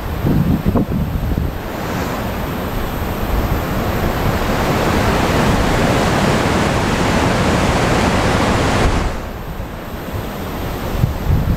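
Wind gusting across the microphone, a loud rushing noise that builds over a few seconds and drops away about nine seconds in.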